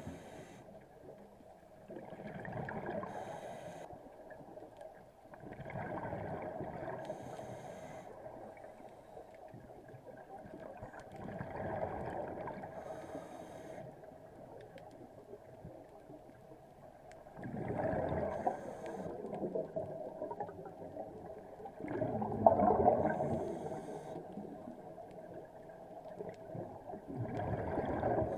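A scuba diver breathing through a regulator underwater: slow, even breaths about every five seconds, each one a rush of gurgling exhaled bubbles.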